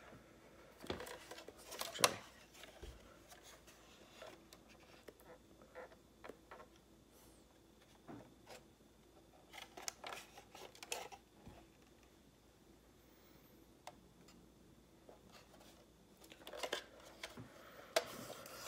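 Handling noise from a 1:18 Kyosho BMW X6 diecast model car being lifted and turned over in the hands: scattered light clicks, taps and rubs, the sharpest one about two seconds in.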